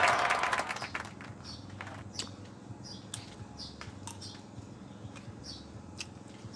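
A small bird chirping in short notes about once a second, over a few faint sharp clicks from eating with a spoon.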